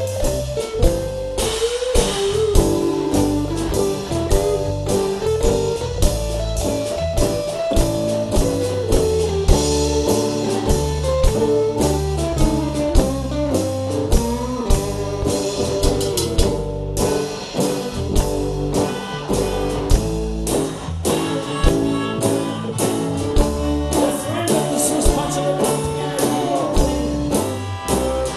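Live band playing with a drum kit beating steadily under electric and acoustic guitars.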